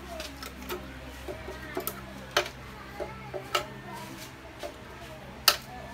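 A few sharp knocks and clinks of hand tools on motorcycle parts, the loudest near the end, over a steady low hum.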